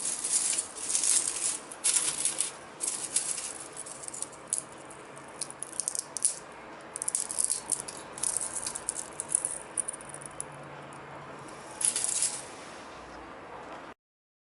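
Dry, crisp dried-onion pieces rattling in irregular bursts as they are handled, poured or shaken. The sound stops abruptly near the end.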